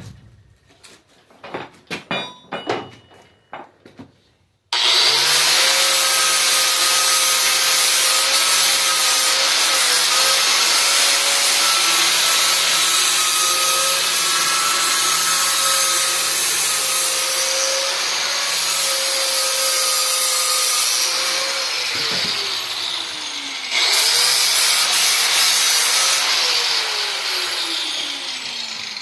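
A few knocks and clicks of handling, then an electric grinder starts up and grinds steel, a steering tie rod, with a loud rasp and a steady motor whine. About 22 seconds in, the whine falls as the grinder winds down, then it starts again and grinds on, its pitch sagging near the end.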